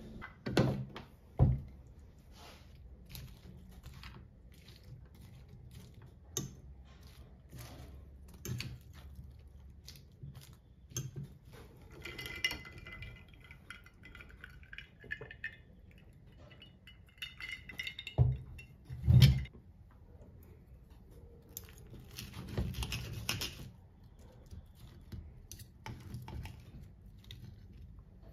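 Mealtime table sounds: knife and fork clinking and scraping on a ceramic plate, ice cubes clinking in a glass jar, and a few louder knocks of things set down on the table, about a second in and again about two-thirds through.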